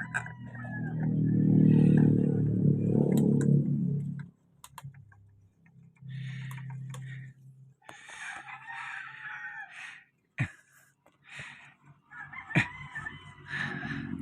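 A rooster crowing several times, with clucking between. During the first four seconds a loud low pitched drone, like a motor, rises over it and then stops.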